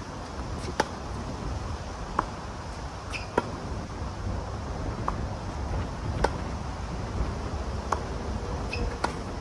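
Tennis rally: sharp pops of a racket striking the ball and the ball bouncing on the hard court, one about every second to second and a half, over a steady low rumble.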